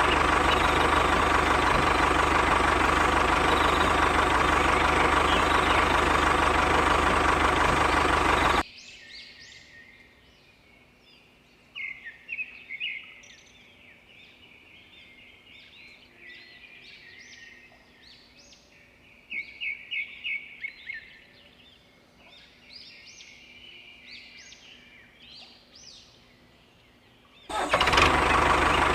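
A loud, steady motor running, which cuts off suddenly about nine seconds in. Quiet follows, with scattered birds chirping. The motor sound comes back suddenly near the end.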